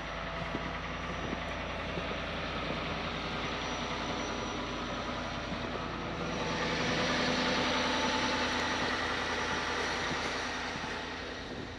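A vehicle engine idling steadily, with a low hum throughout and a hiss that swells for a few seconds in the middle.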